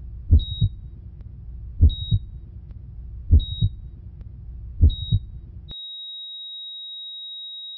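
Heart monitor sound effect: four heartbeats about a second and a half apart, each a double thump with a short high beep. A little past halfway the beats stop and the monitor holds one steady high flatline tone, the sign that the heart has stopped.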